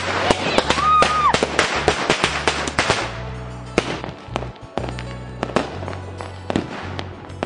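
Firecrackers bursting in rapid crackling succession, densest for about the first three seconds and then thinning to scattered single bangs, over background music.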